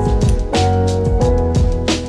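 Background music with a drum beat and sustained instrument tones.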